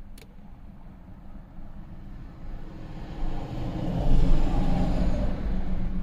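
A vehicle passing by outside, heard from inside a parked car: it swells over a couple of seconds and fades again. A single sharp click just after the start.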